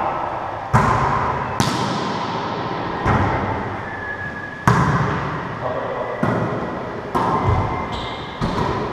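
About seven sharp smacks of a wallyball being struck by hands and bouncing off the court walls during a rally, each one echoing in the enclosed racquetball court.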